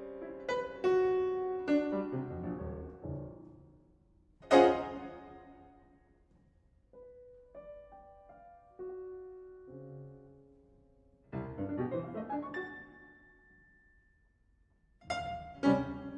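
Solo piano playing slow, sparse classical music. Loud struck chords ring out and fade away, with quiet single notes and near-pauses between them. There is a big chord about four and a half seconds in, a cluster of notes around eleven seconds, and more chords near the end.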